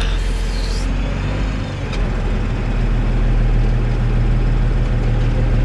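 Tractor engine running hard under load, its note changing about two seconds in and then holding strong and steady, as the tractor tries to back out of deep mud where it is stuck.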